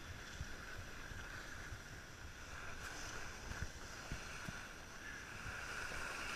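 Skis sliding over groomed snow in a steady hiss, with wind buffeting the microphone in irregular low thumps.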